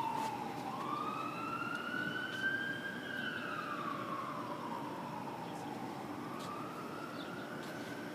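Emergency-vehicle siren in a slow wail, its pitch falling, rising over about three seconds, falling again and starting to rise near the end.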